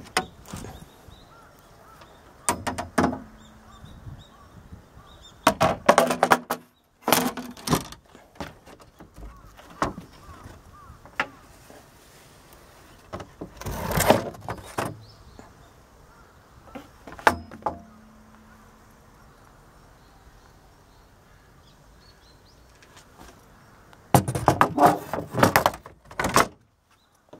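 Irregular knocks, clunks and rattles from hands working the boat's fibreglass seat lids and deck hatches, some followed by a brief low hollow ring. The longest cluster of rattling comes near the end.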